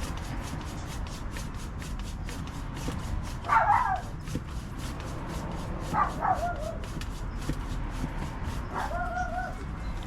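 A dog barking three times, about two and a half seconds apart: short, high yelping barks, the last one slightly drawn out.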